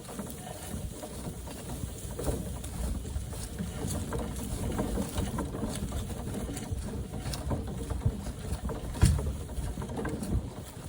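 Loaded wheelbarrow being pushed over the ground, its wheel rumbling and the load rattling, heard through a camera mounted on the wheelbarrow's bar. A sharper knock comes about nine seconds in.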